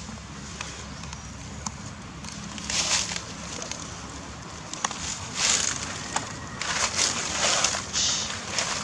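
Dry leaf litter rustling and crackling in several short bursts as a baby macaque moves about in it, with a few small clicks between.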